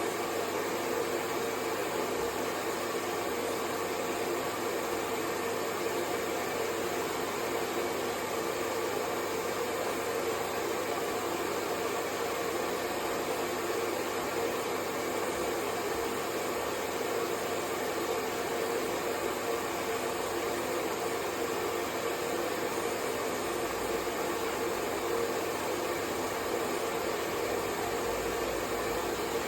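Hair dryer running steadily, an even, unbroken blowing hiss.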